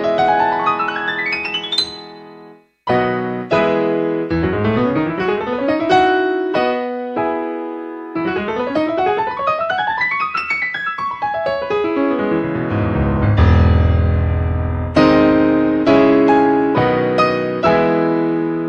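Background piano music: fast rising arpeggio runs, a brief pause about two and a half seconds in, then more sweeping runs up and down the keyboard.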